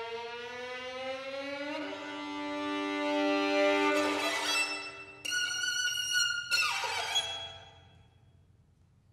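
Violin music from a contemporary art-music piece: two bowed notes slide slowly upward together and then hold. About five seconds in, a sudden high sustained note enters and cuts off abruptly. A last note then fades away near the end.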